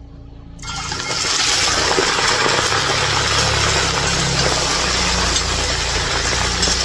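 Raw meat chunks dropped into very hot oil in a large cast-iron kazan, setting off a loud, steady sizzle that starts suddenly about half a second in.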